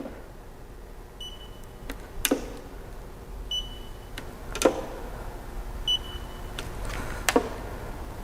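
Handheld paint depth gauge beeping three times, a short high beep every couple of seconds, as thickness readings are taken on the car's painted panels. Sharp clicks fall between the beeps.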